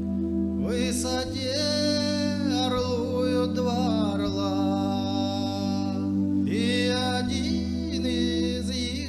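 A singer singing a song, holding long notes, over steady sustained accompaniment chords.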